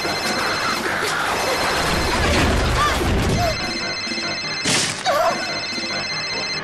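Animated action soundtrack: tense background music under a dense rush of sound effects for the attacking flock of black birds, with a short, loud crash a little under five seconds in.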